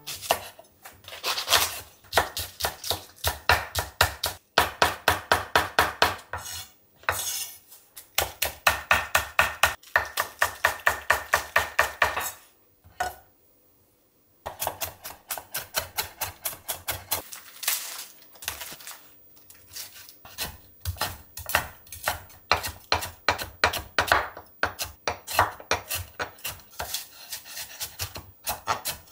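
Chef's knife chopping on a wooden cutting board: quick, even taps about five a second, in runs with short breaks and a brief silence about halfway through. The first half is a green onion being sliced into thin rounds; near the end the knife is cutting pork belly.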